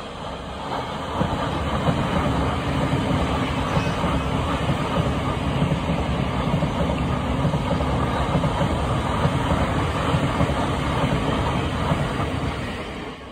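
Thameslink Class 700 (Siemens Desiro City) electric multiple unit passing close by: a steady rumble of wheels on the rails that builds over the first couple of seconds, holds, then cuts off at the end.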